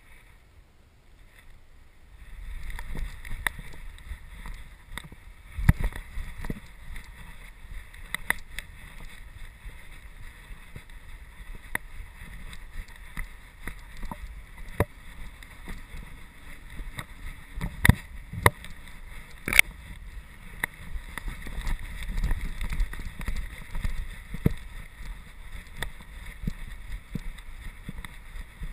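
Rumbling and rubbing of a camera strapped to a golden retriever as the dog moves through dry grass and brush, with frequent sharp clicks and knocks from the jostled housing. It is quiet at first and the rumble starts about two seconds in.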